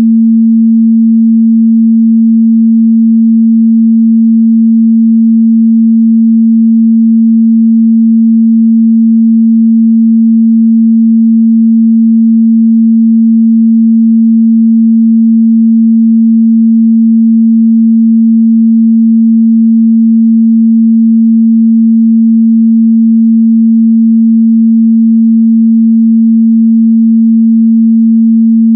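A steady 226 Hz sine-wave test tone, a single pure mid-bass note held at constant loudness.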